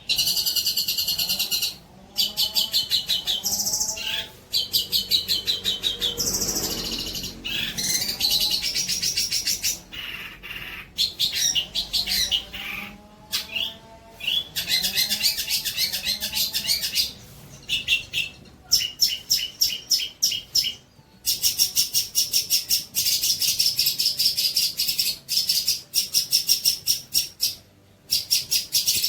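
Songbird singing long runs of fast, rapidly repeated high notes, broken by short pauses: bird-song tutor material for training young long-tailed shrikes.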